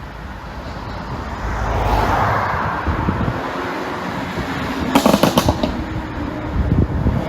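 2021 Mercedes-Benz GLS580's twin-turbo V8 revving, then a rapid string of exhaust pops and crackles on the overrun about five seconds in, with a few more near the end: the sound of an ECU pop-and-bang tune.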